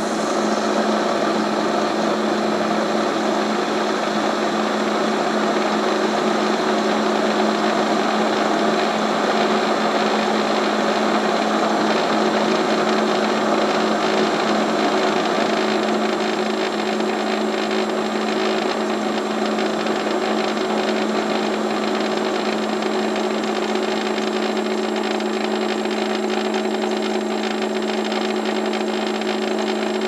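Keurig coffee maker running steadily as it brews, a constant even hum with a steady tone.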